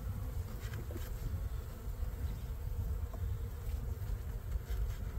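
Honey bees humming steadily around an open hive, with a few faint clicks as wooden frames are handled.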